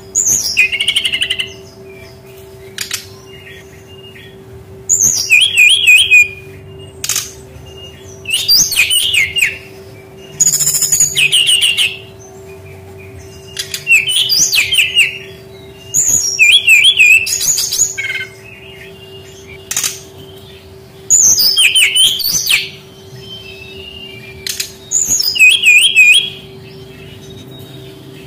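Brown-chested jungle flycatcher singing: short phrases of quick, high warbling notes, each a second or two long and repeated every couple of seconds with pauses between, over a faint steady hum.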